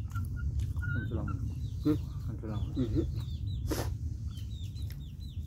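Domestic chickens clucking, with strings of short, high, falling peeps repeating several times a second. Two sharp clicks stand out, about two and four seconds in.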